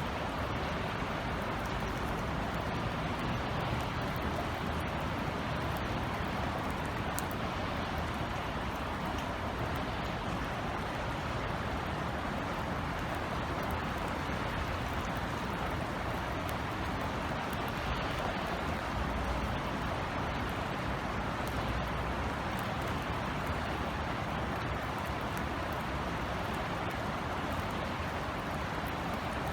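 Steady light rain falling, with scattered faint drop ticks, over a continuous low rumble of city traffic.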